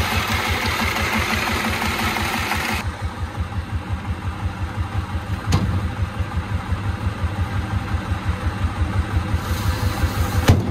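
Single-cylinder diesel engine of a homemade three-wheeled farm truck idling with a steady chugging beat. It is heard close up for the first few seconds and more distant after that, with a sharp knock midway and a louder one near the end.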